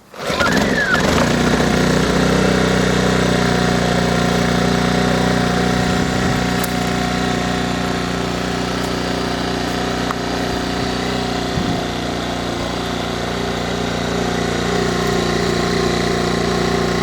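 Small 850-watt petrol inverter generator starting up: the engine catches right at the start and settles into a steady, even run. It is cold and unloaded, with no electrical load switched in yet.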